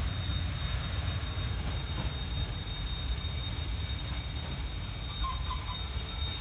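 Covered freight wagons rolling away over the rails, a low steady rumble of wheels on track that is dying away as the train recedes. Two steady high thin tones run beneath it.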